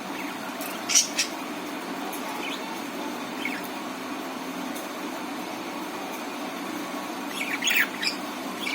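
Budgerigars giving short, sharp chirps and squawks: two about a second in, a couple more scattered singly, and a quick flurry near the end, over a steady background hum.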